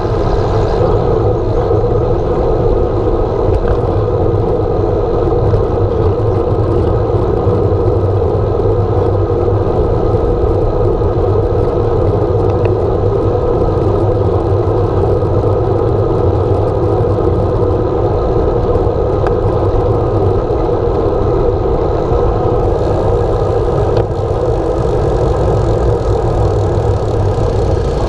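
Steady rush of wind over a handlebar-mounted action camera's microphone, with road rumble from a road bicycle rolling along the street.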